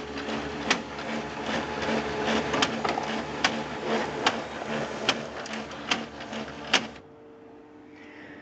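HP LaserJet 2400-series laser printer running, its mechanism whirring with a loud, regular clunk a little more than once a second; it stops suddenly about seven seconds in, leaving a faint hum. The owner believes the clunking comes from worn fuser drive gears.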